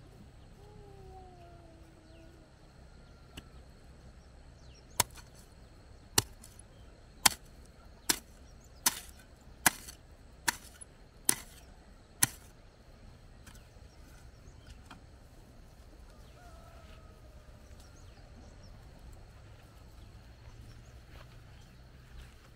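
A hoe blade chopping into grassy soil: nine sharp strikes about one a second, starting a few seconds in and stopping about halfway through.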